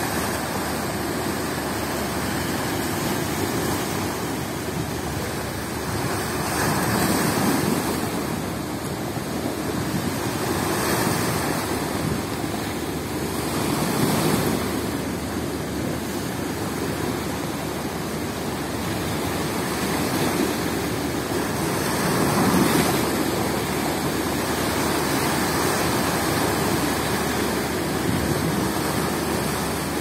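Rough sea breaking on a rocky shore and stone seawall, a continuous rush of surf that swells louder every few seconds as bigger waves crash in, under a strong wind.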